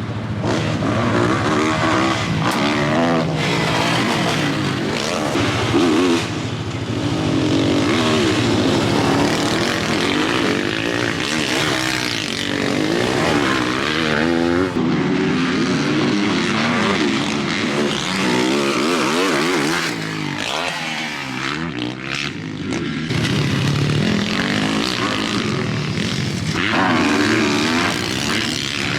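Motocross dirt bike engine revving hard and easing off over and over as it is ridden around the track, its pitch rising and falling with each throttle burst and gear change. It fades briefly about halfway through and again around twenty seconds in.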